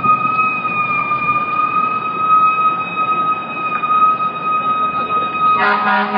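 Fire truck siren holding a steady high tone over traffic noise. About five and a half seconds in a deep, loud horn starts blaring on top of it.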